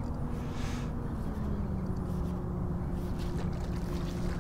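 Steady low hum of a boat motor with a few held tones, one dropping slightly in pitch about a second in, over a low rumble of wind and water.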